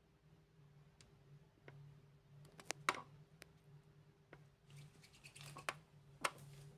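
Quiet handling of soft plasticine and a short wire: a few scattered small clicks and taps, the sharpest about three seconds in, then a soft rubbing about five seconds in as a hand starts rolling the plasticine on paper. A low steady hum runs underneath.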